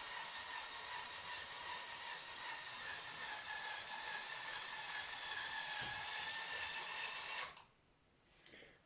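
Motorized Lego train's battery-powered motor and gears whining steadily over a hiss as it runs around the track, then cutting off about seven and a half seconds in.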